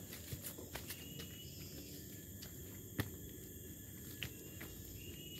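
Footsteps crunching over dry leaves and twigs on a forest path, with irregular snaps and one sharper snap about three seconds in. A steady high buzz of insects runs underneath.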